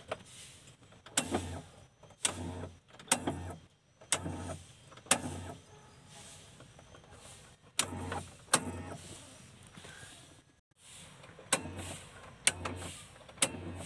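Engine-stop relay clicking and the engine-stop motor whirring in short bursts, about ten times at irregular intervals, each burst opening with a sharp click: the newly wired relay being switched on and off to try the engine-stop circuit.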